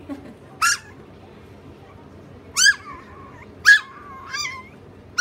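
Chihuahua 'talking': four short high-pitched yips, the second and third trailing off into a wavering, warbling whine.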